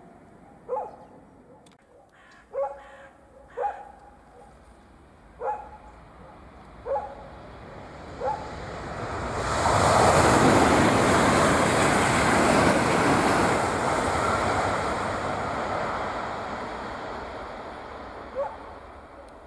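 A Frecciarossa 1000 high-speed electric train passing at speed: a rushing noise that swells about eight seconds in, is loudest for a few seconds, then slowly fades. Before it a dog barks about seven times, and once more near the end.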